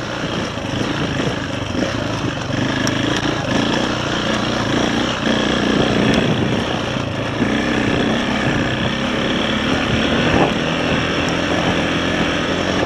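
KTM 525 dirt bike's single-cylinder four-stroke engine running under load on a rocky track, its revs rising and falling as the throttle is worked.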